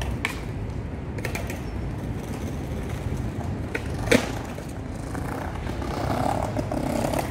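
Skateboard wheels rolling over stone paving, growing louder near the end, with a few sharp clacks, the loudest about four seconds in, over a steady low rumble of city traffic.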